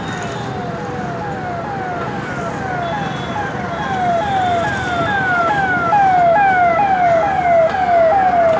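An electronic siren sounding in quick, repeated falling sweeps, about two a second, growing louder.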